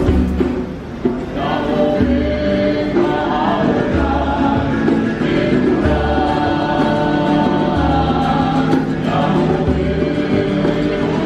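Background music with choir-like singing held over repeating bass notes.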